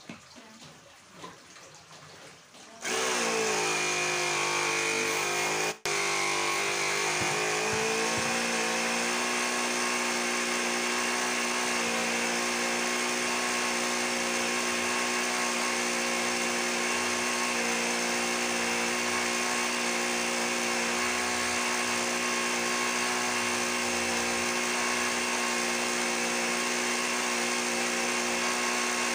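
Mini car tyre-inflator air compressor switched on about three seconds in, its small motor running with a steady drone and a hiss of air as it feeds an airbrush. The pitch wavers for the first few seconds before settling, and the sound cuts out for a split second once, just before six seconds in.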